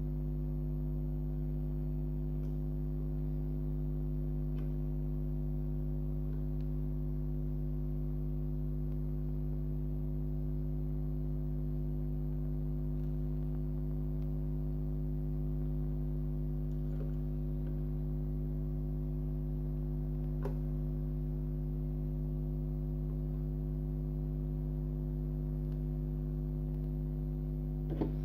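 Steady electrical hum, a low tone with a stack of overtones, unchanged throughout, with a few faint clicks over it and a short knock near the end.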